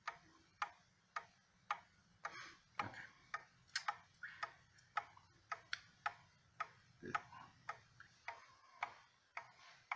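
Mechanical skeleton wall clock ticking steadily, its exposed escapement giving sharp, even ticks at about two a second.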